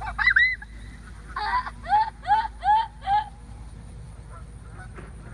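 Canada geese honking as the flushed flock takes off: a cluster of overlapping honks at the start, then five evenly spaced honks, each rising then falling in pitch, about one every half second.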